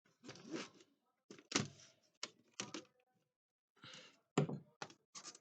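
Clicks, knocks and thuds of laptop parts being handled and set down during disassembly, irregular, with the two loudest thuds about one and a half and four and a half seconds in.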